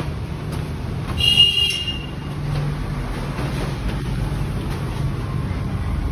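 Steady low rumble of road traffic and vehicle engines, with one short high-pitched tone about a second in.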